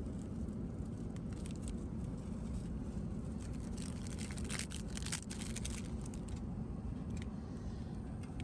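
Steady low drone of an Airbus A380 cabin in cruise, with plastic food wrapping crinkling and rustling under a hand for a few seconds in the middle.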